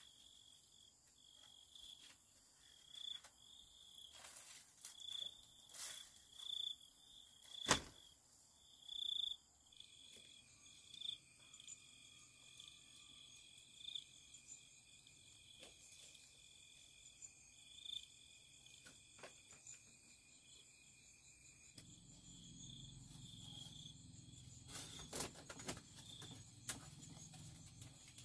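Insects chirping in a steady, pulsing high trill, with scattered knocks and taps, the loudest about eight seconds in.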